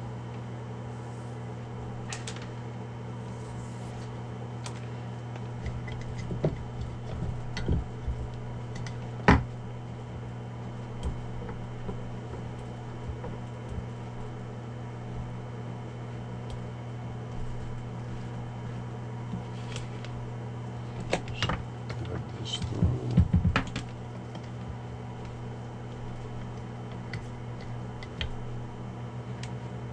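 Hands handling cables and radio parts inside a foam-lined Pelican plastic hard case: scattered clicks and light knocks, the loudest about nine seconds in and a cluster of rattling knocks a little past twenty seconds. A steady low hum runs underneath.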